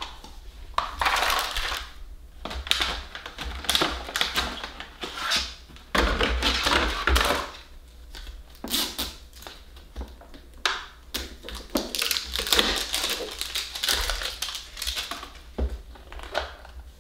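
A small hard-plastic LOL Surprise capsule ball handled and twisted in the hands to pry it open: a busy run of plastic clicks and clacks, with stretches of plastic scraping and rubbing.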